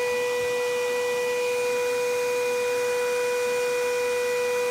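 Steady electrical whine from a high-voltage hairpin (Tesla) circuit, one unchanging tone with a ladder of overtones over a hiss.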